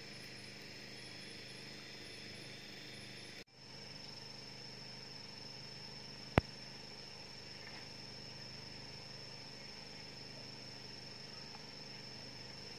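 Crickets chirring at night in one steady high note, with one sharp click about six seconds in.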